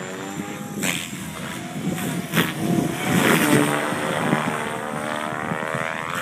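Synergy E5 550-size electric RC helicopter flying 3D manoeuvres: the rotor and motor whine rises and falls in pitch, with a few sharp rotor swishes, loudest about halfway through.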